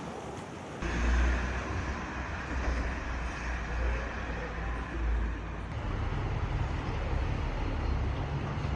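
Steady low rumble of a motor vehicle, starting abruptly about a second in.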